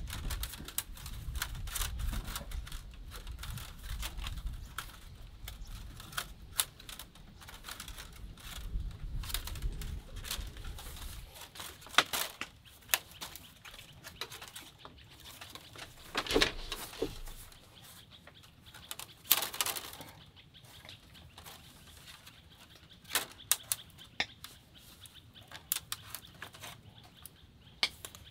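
Thin split bamboo strips clicking, rustling and scraping against each other as a basket is woven by hand, with a few sharper snaps. A low rumble runs under the first ten seconds or so, then stops.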